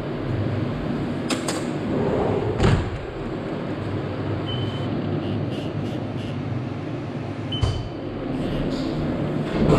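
CNC machining centre running with a steady low hum, a few sharp knocks early on and two short high beeps.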